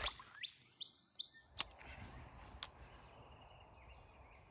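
Quiet pond-bank ambience: the splash of a released fish fading at the start, then a steady thin high insect tone that sets in about one and a half seconds in, with a few faint bird chirps and two sharp clicks.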